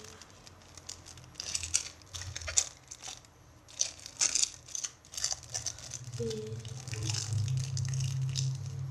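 Plastic packaging crinkling and rustling in irregular bursts as it is handled, with a steady low hum joining about six seconds in.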